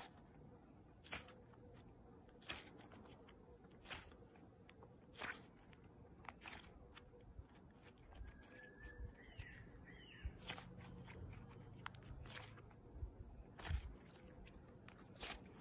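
Semi-thick slime squeezed and folded in the hand, giving short, sharp pops and clicks about every second and a half.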